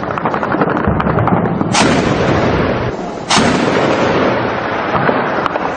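Heavy automatic gunfire in rapid, continuous bursts, with two louder shots about a second and a half apart.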